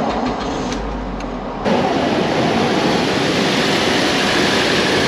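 Car engine, a Mazda's, cranked on the starter and catching about a second and a half in, then running steadily. This is the first start after the cooling system was refilled.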